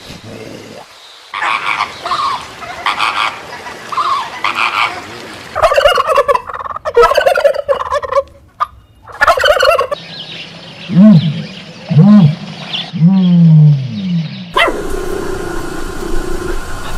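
Domestic turkeys gobbling, call after call in repeated rattling bursts. Near the end the calls give way to a steady hum.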